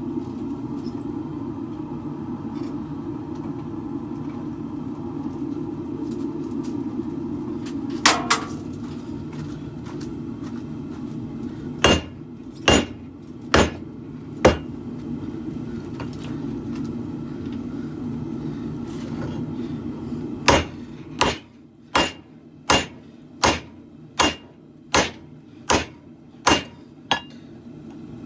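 Hammer blows on a steel khopesh blade at the anvil. First come a few single ringing strikes, then near the end a steady run of about a dozen blows, roughly one and a half a second. A steady low rumble runs under the first part and drops away as the run of blows begins.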